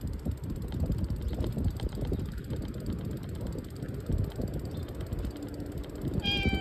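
Rattling, clattering rumble of a bike ride over uneven ground, with wind on the microphone. Near the end a cat gives one short, high meow.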